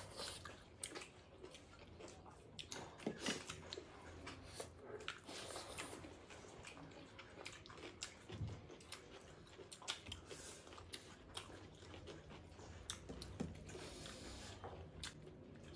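Faint close-up eating sounds: two people chewing and lip-smacking, with many small, irregular wet clicks as they work rice and meat by hand.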